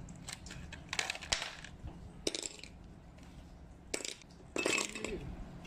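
Ice cubes dropped one at a time into a glass mug, several sharp clinks against the glass over a low steady hum.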